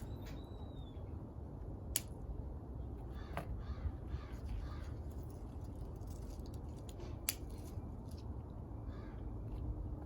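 Scissors snipping through plant stems during harvesting: a few sharp clicks spaced several seconds apart, over a steady low rumble, with crows cawing faintly in the background.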